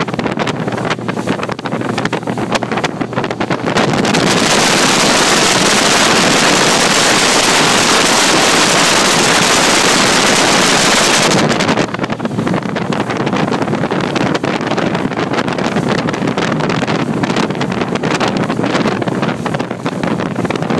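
Fast-running bass boat: wind buffets the microphone in gusts over the rush of the hull and its outboard motor. From about four seconds in to about twelve seconds, a louder, even roar of wind, spray and the Yamaha outboard at the stern, starting and stopping abruptly.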